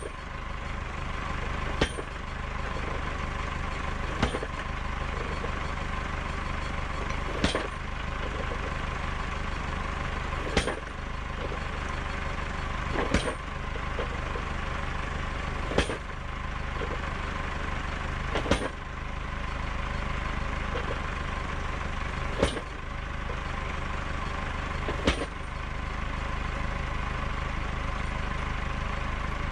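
Tractor-mounted post banger striking a wooden fence post, about ten sharp blows two and a half to four seconds apart, over the Massey Ferguson tractor's engine running steadily.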